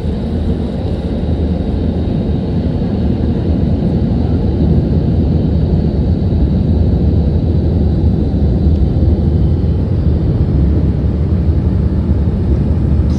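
Car wash tunnel dryer blowers running, a steady loud rush of air heard from inside the car, growing slightly louder about four seconds in.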